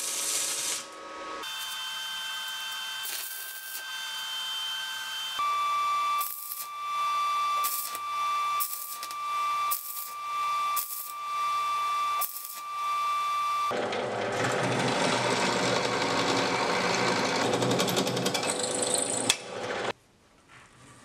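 Stick welding: the arc crackles and sizzles as a flux-coated rod burns into steel held in a vise, with a steady high tone running under it. In the middle the arc comes in short bursts about a second apart, then runs in one long continuous stretch, and it cuts off abruptly about a second before the end.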